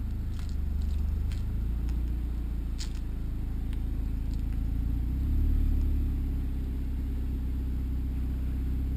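A 2015 Honda Civic Si's 2.4-litre four-cylinder idling as the car creeps backward: a steady low rumble that swells slightly about five and a half seconds in, with a few faint ticks in the first three seconds.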